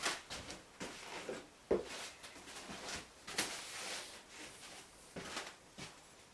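Light irregular knocks, clicks and scrapes of objects being handled and set down on a workbench, with no saw running.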